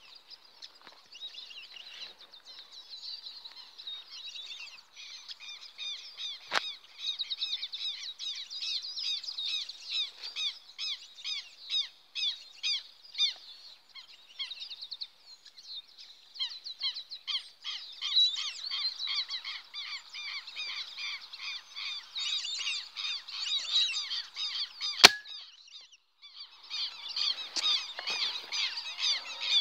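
A flock of birds calling at once in a dense, high-pitched chorus of short repeated calls. A single sharp crack stands out about 25 seconds in, with a fainter click earlier.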